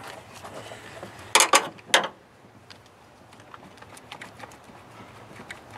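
Three sharp metallic clinks close together about a second and a half in, then quieter taps and scrapes as the positive battery cable clamp is worked loose from its post by hand.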